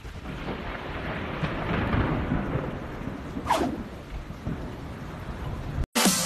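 Stormy-sea sound effect: a rumble of thunder with a rushing, rain-like noise and a brief sharper sound about three and a half seconds in. It cuts off near the end.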